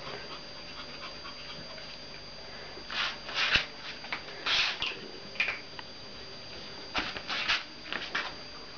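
Pomeranian dogs making a series of short, breathy snuffling sounds, starting about three seconds in.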